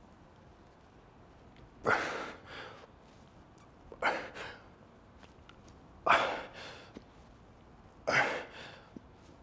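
A man's forceful breathing under exertion, as in lifting reps: a sharp, hard exhale about every two seconds, four in all, each followed by a quicker, softer breath.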